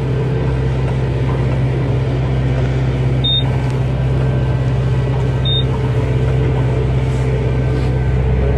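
Kubota tractor engine running steadily, heard from inside the cab. Two short, high electronic beeps sound about three seconds in and again about five and a half seconds in.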